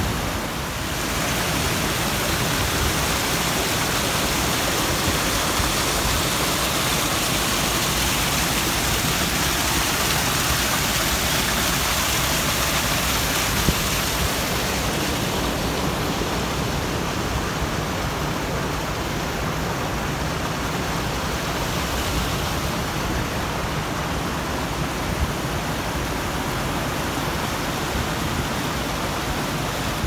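Steady rushing noise of surf breaking on a cobble beach, with no single wave standing out. The hiss thins a little about halfway through.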